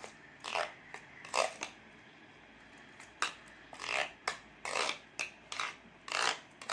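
A spoon stirring beaten eggs with coriander in a bowl: a series of short scraping, swishing strokes against the bowl, with a brief pause about two seconds in.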